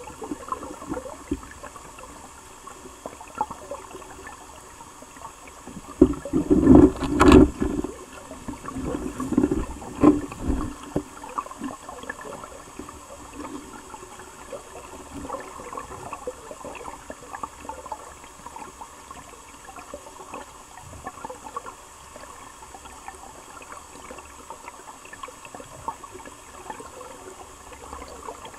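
Flowing river water, a steady rushing and gurgling, broken about six seconds in by a loud spell of rumbling knocks, with a weaker one a few seconds later.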